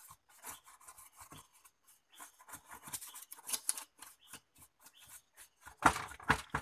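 A small bristle brush sweeping dust off the metal back frame and boards of an opened LED TV, in quick irregular scratchy strokes that are heaviest about six seconds in.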